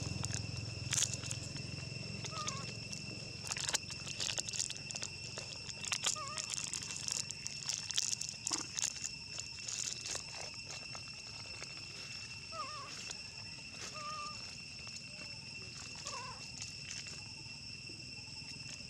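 Monkeys giving short, soft squeaking calls, one every second or two, over a steady two-pitched insect drone, with scattered clicks and rustles in the first half.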